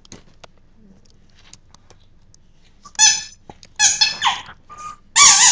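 Dog's squeaky rubber ball toy squeaking loudly several times in quick succession, starting about three seconds in, each squeak high-pitched and piercing.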